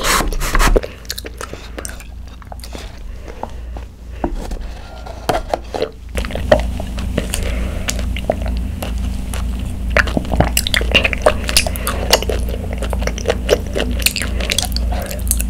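Bubble tea sipped through a wide plastic straw, with tapioca pearls chewed in between: wet sucking, slurps and small mouth clicks, close to the microphones. The sipping and chewing grows busier and steadier about six seconds in.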